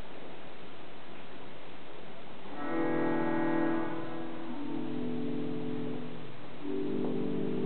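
Church organ playing slow, sustained chords that begin about two and a half seconds in, the chord changing twice.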